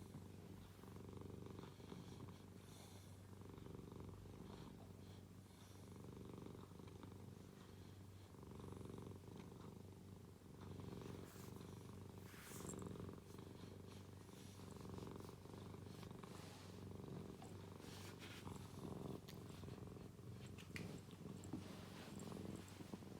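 Ginger cat purring steadily, with now and then a faint rustle.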